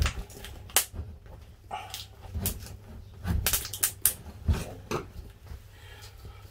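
Small hooked metal pick scraping and clicking in the aluminium track of a roof tent's base as debris is dug out: irregular sharp clicks of metal on metal, with a denser run of them about three and a half seconds in.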